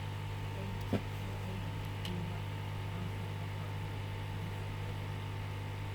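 Hot air rework station running with a steady fan hum and a faint steady whine, with one short click about a second in.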